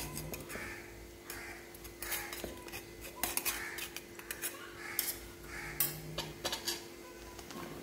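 Steel spoon clinking and scraping against a steel puttu mould and a steel pan while masala is spooned in, a string of light, irregular clinks.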